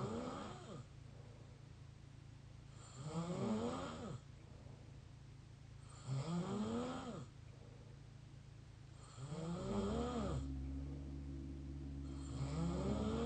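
Open-mouth snoring: a snore about every three seconds, each one sliding up and then down in pitch. A steady low hum comes in about ten seconds in.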